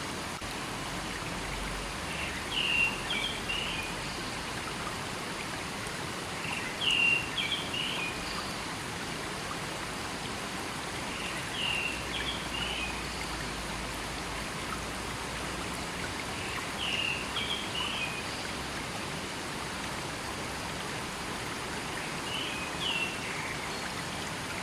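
A river flowing steadily. A bird repeats the same short, chirpy song phrase five times, about every five seconds.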